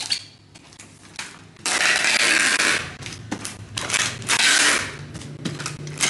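Handheld packing-tape dispenser sealing a plastic-wrapped box. Packing tape rips off the roll in several long noisy pulls, the first lasting over a second, with clicks and crinkling plastic between.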